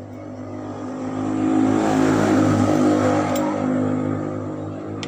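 A motor vehicle's engine passing close by, swelling to a peak in the middle and fading away, with a single sharp click partway through.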